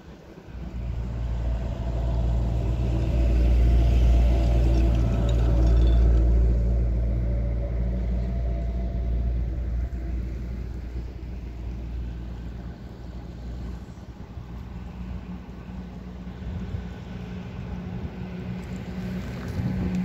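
Low, steady engine rumble that comes up just under a second in, is loudest a few seconds later and then slowly fades.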